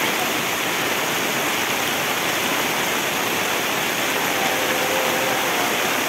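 Heavy rain and strong wind making a steady, even rush with no breaks.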